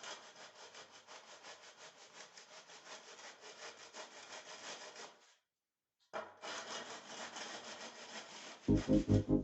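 Fast rhythmic scraping of a hand tool worked back and forth over wet sand-cement screed, about four or five strokes a second. It breaks off briefly about five seconds in and resumes. Music comes in near the end.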